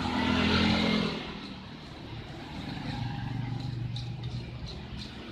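A motor vehicle engine running, loudest for about the first second and then settling into a steady low hum.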